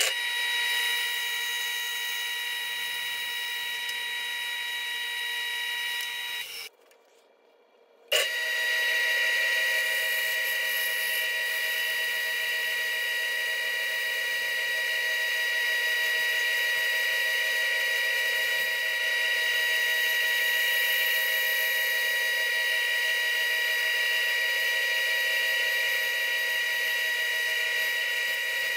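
Bandsaw running with a steady whine as its blade cuts thick wood into letter shapes. The sound drops out for about a second and a half around seven seconds in, then comes back abruptly and runs on steadily.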